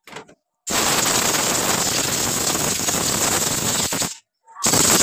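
Compressed-air blow gun blasting air into a motorcycle carburetor body to clear dirt from its passages: a loud, steady hiss for about three and a half seconds, a short break, then a second blast near the end.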